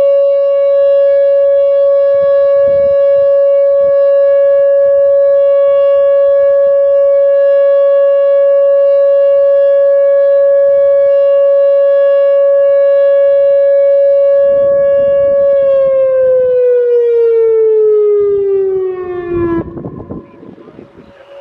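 Whelen WPS-2908 electronic nuclear-plant warning siren sounding its steady alert tone for a test: one held pitch with strong overtones. About three-quarters of the way in, the pitch glides down for about four seconds and cuts off, leaving wind noise.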